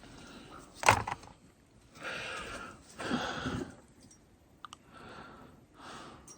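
Rummaging through a storage box of tools and gear: a sharp knock about a second in, then items being shuffled and rustled several times, with a couple of small clicks.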